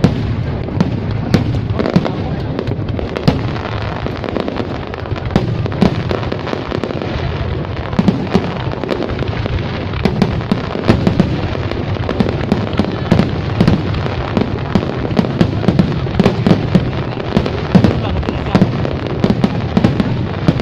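Aerial fireworks bursting in quick, irregular succession, many sharp bangs a second over a continuous rumble of booms.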